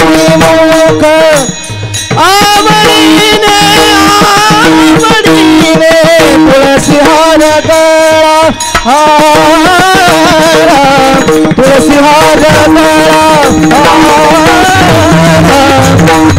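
Kirtan devotional music: a wavering melody over a steady drone, with hand-drum strokes and small hand cymbals (taal) keeping time. It dips briefly about a second and a half in.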